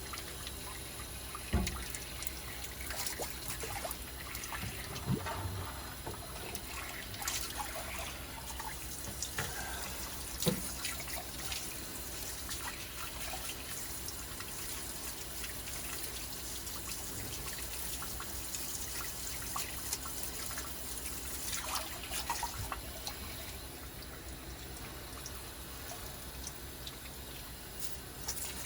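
Water trickling from a tap into a sink, with occasional light knocks and clinks of parts being handled.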